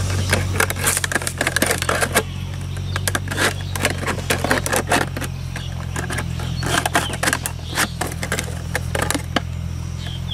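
A knife cutting into a thin clear plastic water bottle, with rapid, irregular crackling and clicking of the plastic as it is cut and flexed, over a steady low hum.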